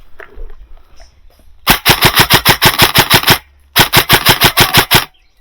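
Airsoft gun firing two rapid strings of shots, each about a second and a half long, at roughly eight shots a second, with a short pause between them.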